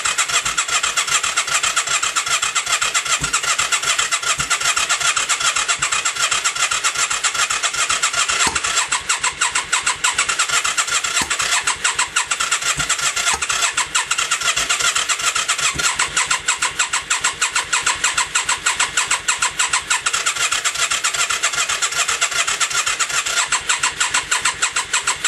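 Yamaha XV535 V-twin engine cranking over steadily on the electric starter without firing. It is a no-start: the engine turns but never catches.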